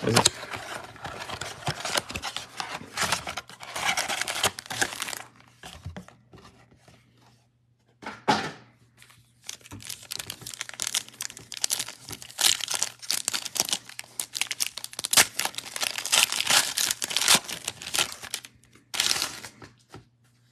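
Foil wrapper of a 2022 Absolute Football trading-card pack being torn open and crinkled by hand, along with the blaster box's cardboard flap being opened at the start. The crackling comes in two long stretches, broken by a pause of about two seconds near the middle and short crackles near the end.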